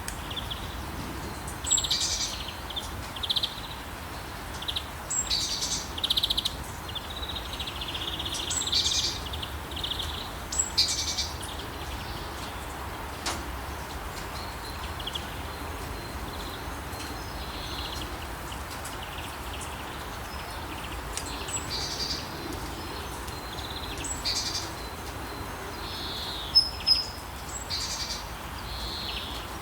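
Birds chirping and calling in short, scattered bursts, busier in the first half with two sharp louder calls near the end, over a steady hiss of light rain.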